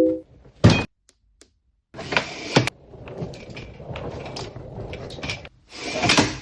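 Things being handled while packing a suitcase: a short sharp knock, then bursts of rustling and sliding, with a louder swish near the end.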